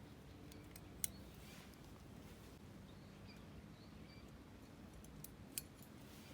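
Two sharp clicks, one about a second in and one near the end, with a few fainter ticks and some faint short high chirps over a quiet background.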